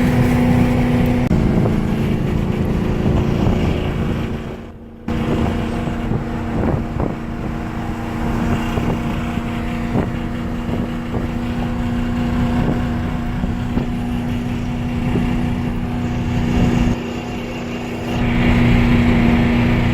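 Ford Crown Victoria Police Interceptor's 4.6-litre V8 droning steadily at highway speed, heard from inside the cabin with road and wind noise, while the engine is misfiring. The sound drops away briefly about five seconds in.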